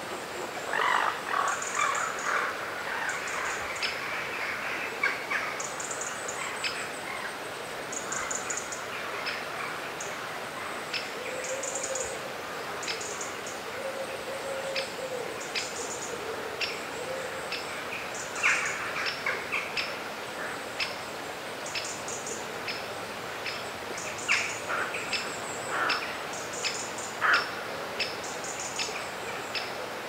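Songbirds chirping and calling, with many quick high chirps and louder calls now and then, over the steady rush of a river.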